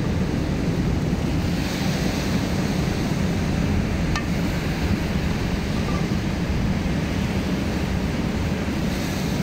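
Wind buffeting the microphone over the steady wash of ocean surf, with a single small click about four seconds in.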